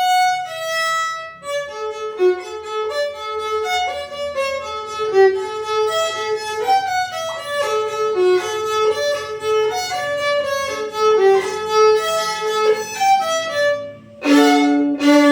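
KM Paganini HL001 violin played in a sound test: a quick melody of many short bowed notes, ending near the end with a loud, briefly held chord over a low note.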